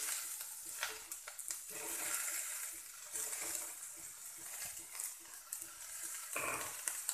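Wet, freshly drained potato strips landing in a kadhai of hot mustard oil and onions, setting off a steady sizzle, with a few clicks as pieces drop in.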